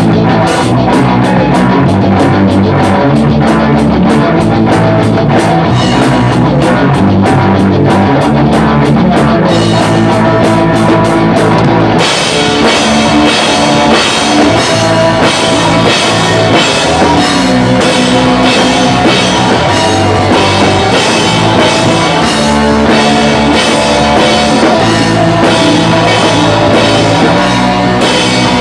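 Pop-punk band playing, with a drum kit and guitars. About twelve seconds in, the evenly spaced drum hits give way to a fuller, brighter wash of cymbals that carries on.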